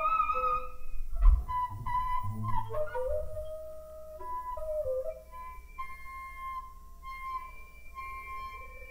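Ultrasonic acoustic feedback tones, modulated down into hearing range, from a small instrument built in a clear plastic container and disturbed by a wooden stick. Clear whistling tones jump and slide between pitches, with a few low knocks about a second in. In the second half they settle into a steady high tone with a fainter, higher one above it.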